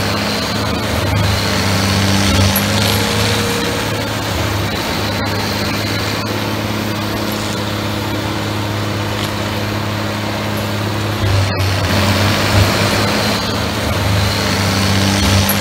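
Massey Ferguson 6480 tractor's diesel engine running steadily under load, driving a TMC Cancela TFK 225 forestry mulcher that shreds small fir trees and brush: a loud, steady, dense din with a low hum under it. There is a very brief dropout about three-quarters of the way through.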